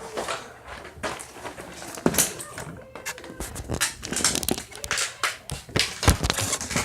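Handling noise from a plastic toy blaster and its dart belt: a run of irregular clicks, taps and rustles, with a heavier thump about six seconds in.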